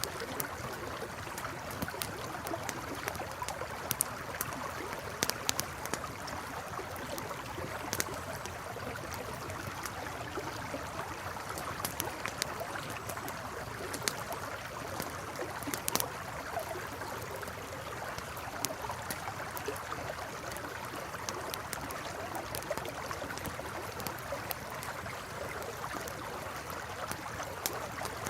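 A campfire crackling, with scattered sharp pops, over the steady rush of a flowing river.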